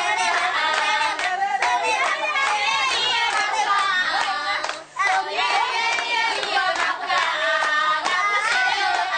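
A group of voices singing together with hand-clapping, with a short break just under five seconds in.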